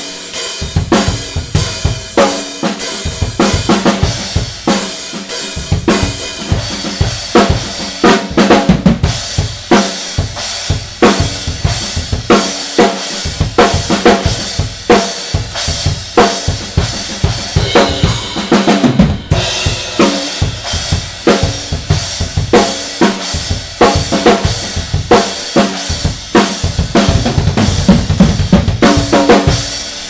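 Full drum kit played in a steady groove, with bass drum, snare and cymbals struck throughout, including a Zildjian A Custom EFX 16-inch crash, a holed effects crash, hit repeatedly with nylon-tip 5B sticks.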